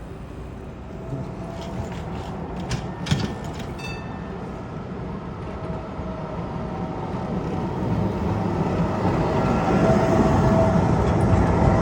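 Tram running and growing steadily louder as it comes closer, with a steady hum over its rolling noise and a few sharp clicks about two to three seconds in.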